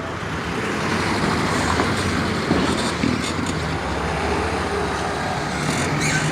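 Road traffic on a town street: a steady noise of passing vehicles' engines and tyres, with a low engine hum coming in near the end.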